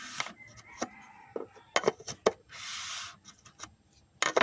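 Hand-handled car parts and tools: a scattering of sharp clicks and taps, with a short rubbing sound a little past the middle.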